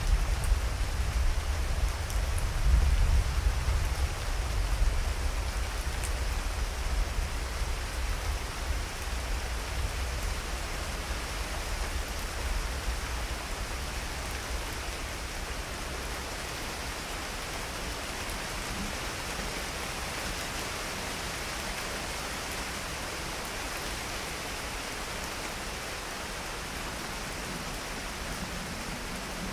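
Steady rain falling, with a low rumble of thunder that fades away over roughly the first ten seconds, leaving only the rain.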